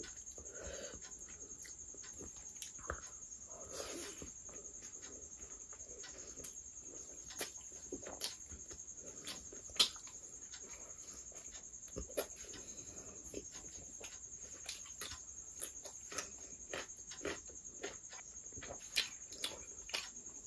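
Close-miked eating sounds: wet chewing, lip-smacking and sharp mouth clicks while a mouthful of paratha and chicken curry is chewed, with a crisp tearing of flaky laccha paratha near the end. A steady high whine runs underneath.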